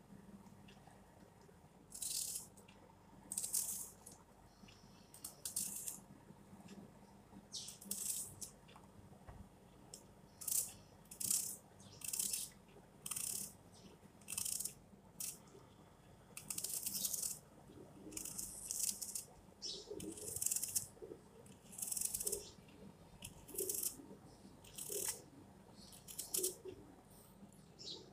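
Red onion being pulled apart and sliced by hand: short, crisp, papery crackles, roughly one a second, with gaps between.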